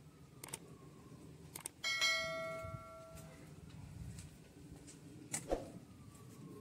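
Subscribe-button animation sound effects: a couple of mouse clicks, then a bell chime that rings out about two seconds in and fades over about a second and a half. A sharp click comes near the end.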